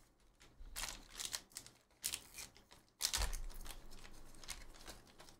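Foil trading-card pack being torn open and crinkled by hand: a run of uneven crackling, rustling bursts, loudest from about three seconds in.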